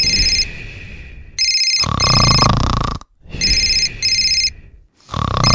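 A telephone ringing in repeated double rings, over heavy snoring that swells loud and drops back every couple of seconds.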